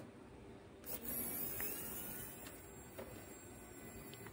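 Cordless electric precision screwdriver's small motor whirring for about two seconds, starting about a second in, as it turns a screw in a laptop's bottom panel; a sharp click comes right at the start.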